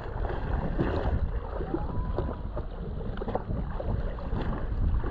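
Wind buffeting the microphone on a jet ski sitting tied up on open sea: a steady gusty rumble, with water lapping at the hull.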